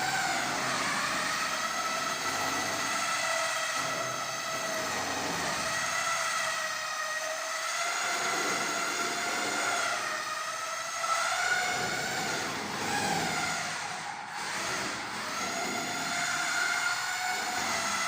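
Electric mixer drill whining steadily as it stirs self-leveling floor compound, its pitch wavering slightly as the load on the paddle shifts.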